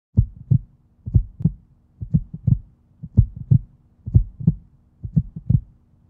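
A heartbeat sound effect: a low double thump, lub-dub, about once a second, six times, over a faint steady hum.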